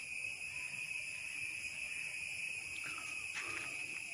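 Chorus of insects making a steady, high-pitched drone, with a few faint ticks in the second half.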